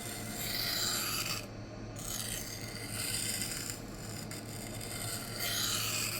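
A K110 steel knife edge scraping across a Rikon CBN sharpening plate in about three long strokes of a second or so each, with short pauses between. The coarse plate is cutting aggressively.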